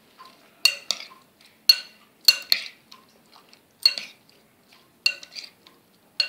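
A spoon clinking against a glass mixing bowl while cauliflower florets are stirred through a thick batter: irregular, sharp ringing clinks, one or two a second.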